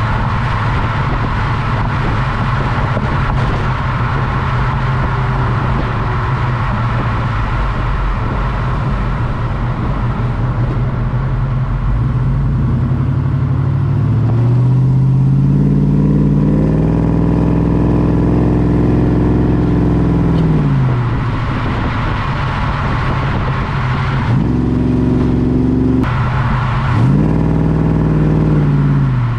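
LS1 V8 in a 1967 Chevelle on the road. At first a steady rumble of engine, tyres and wind. From about halfway the engine note climbs and drops several times as the car accelerates.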